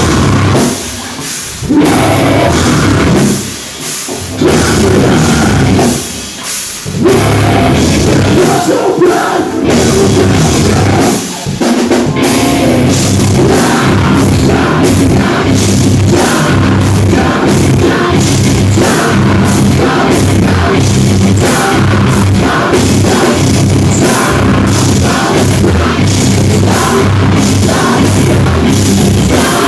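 Live metal band playing at full volume: distorted guitars, bass and drum kit. For about the first twelve seconds the riff stops and starts with brief breaks, then settles into a steady, driving section with fast, even drum hits.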